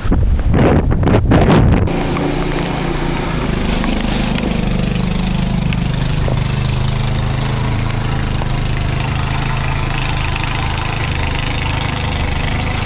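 A loud burst of wind noise on the microphone for about two seconds, then an engine running steadily at idle with an even low pulse.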